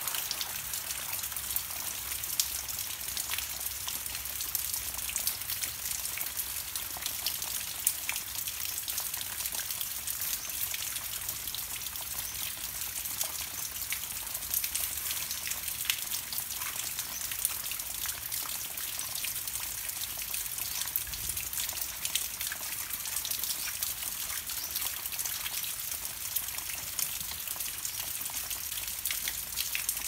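Steady rain falling on leaves, with many single drops ticking sharply against the hiss.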